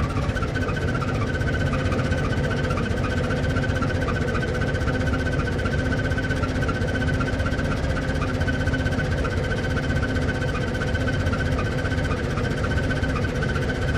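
Old car's engine running at a steady speed: an unbroken low rumble with a faint steady whine over it and no revving.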